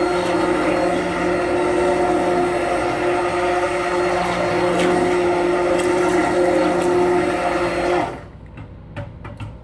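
Handheld stick blender motor running at a steady pitch while mixing lye solution and oils into soap batter, short of trace. It switches off about eight seconds in, followed by a few light clicks.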